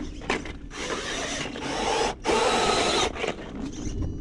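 RC rock crawler's electric motor and geared drivetrain whirring in short bursts of throttle, with a brief dip a little after two seconds in, as it drives and reverses over rock.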